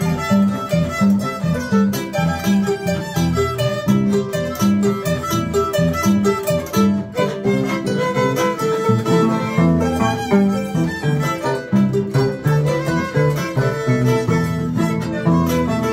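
Andean harp and violin playing a huayno instrumental together: the harp plucks a steady bass beat and chords under the bowed violin melody.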